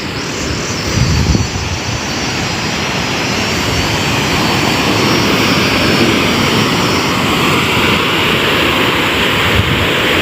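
A river rushing over rocks: a loud, steady roar of running water that slowly grows louder, with insects chirping high above it for the first several seconds.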